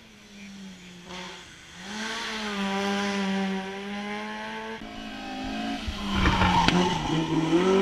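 Hillclimb race car approaching at speed, its engine note held at a fairly steady pitch as it comes nearer. It is faint at first and grows louder near the end.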